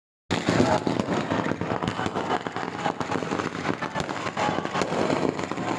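Fireworks going off overhead: a dense, irregular crackle of many small pops. It starts after a moment of silence at the very start.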